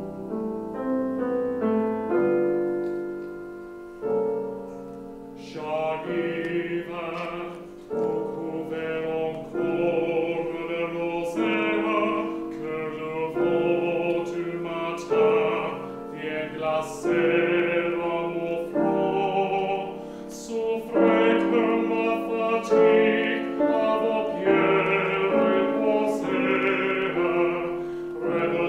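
A solo classical singer performing a French art song with piano accompaniment. The piano plays alone at first, and the voice comes in about five seconds in and sings on over the piano.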